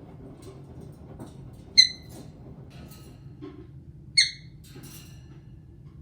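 Caique parrot giving two short, shrill calls about two and a half seconds apart, with a few faint chirps between and after them.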